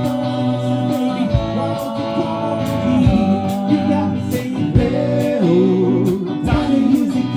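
Song with guitar and a steady drum beat, a singing voice over it.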